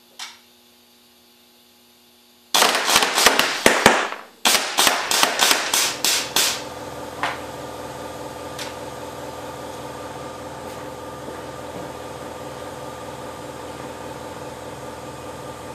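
Semi-automatic solenoid-valve air cannon firing quarter-inch steel BBs into a cardboard box: a rapid string of sharp cracks, about twenty in four seconds with a brief break halfway, then a few single ones. A steady machine hum follows.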